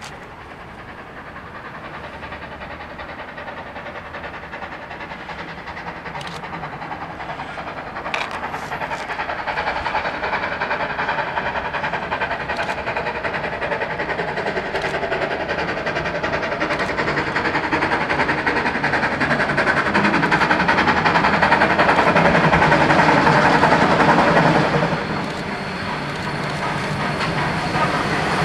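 Queensland Rail BB18¼ class Pacific steam locomotive working hard up a grade, its exhaust beat growing steadily louder as it approaches. The sound peaks about four seconds before the end, drops suddenly, then builds again as the engine draws close.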